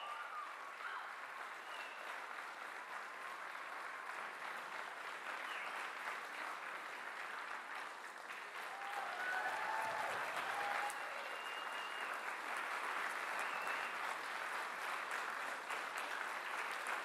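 Theatre audience applauding steadily, growing louder about ten seconds in, with a few cheers over the clapping.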